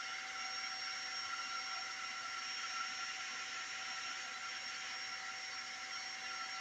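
Creality K1 3D printer's cooling fans running with a steady whir and a few steady high tones.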